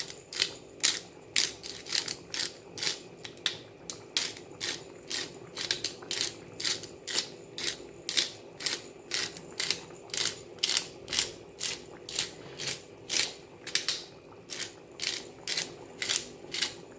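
Pepper mill being twisted to grind black peppercorns: a steady run of dry crunching clicks, about three a second.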